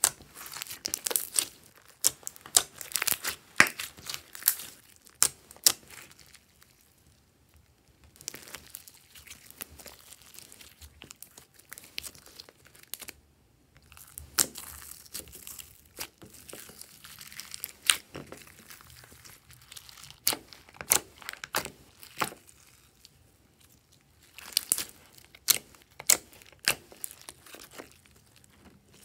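Glossy slime being squeezed, pulled and kneaded by hand with glitter and add-ins mixed in. It makes bursts of sharp crackles and pops, with short quiet pauses between the bursts.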